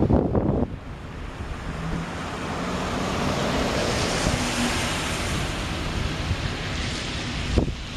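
Wind buffeting the microphone, with a rushing noise that swells and fades in the middle.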